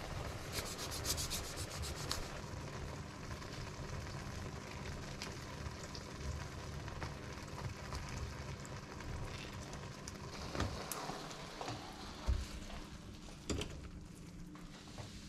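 Tomato, egg and red bean mixture sizzling and frying in a pan, with a spatula scraping and clicking against the pan. Several knocks near the end as the pan is handled on the hob.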